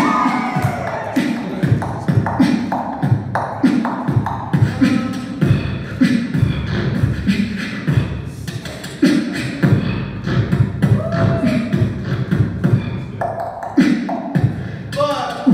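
A beatboxer performing a steady beat of vocal kick drums, snares and clicks. Hummed, gliding pitched tones are woven in near the start and again near the end.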